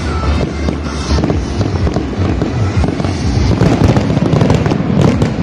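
Aerial fireworks bursting and crackling, with sharp bangs and crackles coming thick and fast near the end, over loud music with a deep bass.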